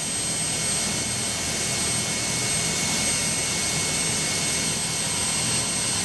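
Cordless drill running at steady speed, boring into a thick PVC pipe with a high, even whine. It winds down at the very end.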